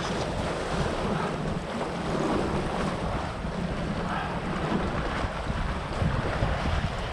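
Wind buffeting the microphone over choppy sea, with the wash of small waves: a steady rushing noise with a low rumble.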